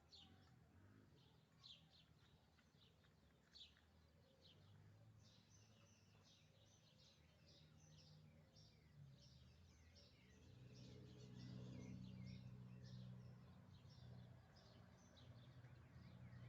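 Faint birdsong: many small birds chirping in quick, short high notes that grow denser after about five seconds. Under it runs a low steady hum that swells around ten to thirteen seconds in.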